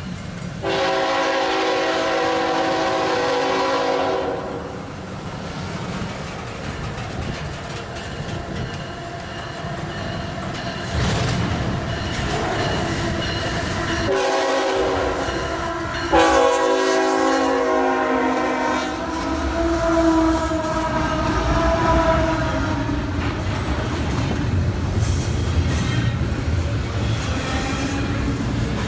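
CSX freight locomotive horn sounding: a long blast about a second in, then a short blast and a long blast around the middle. Locomotive rumble and wheels on rail build up through the second half as the train draws near.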